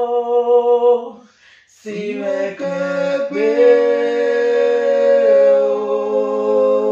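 A man and a woman singing together in harmony, holding long sustained notes, with a brief pause for breath about a second in before they come back in together.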